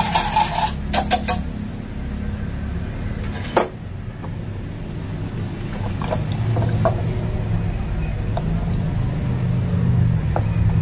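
Steady low roar of a gas stove burner under a saucepan of white sauce. A wire whisk knocks against the aluminium pan several times in the first second or so, one sharp knock comes about three and a half seconds in, and faint taps of a wooden spoon stirring the sauce follow.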